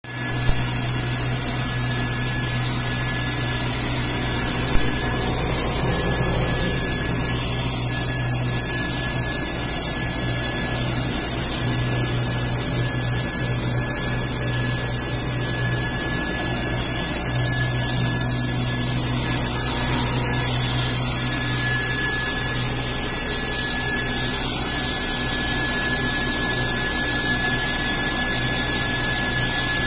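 SMF600 PVC pulverizer (plastic mill) running steadily together with its blower fan: a constant high whine over a loud hiss and a low hum.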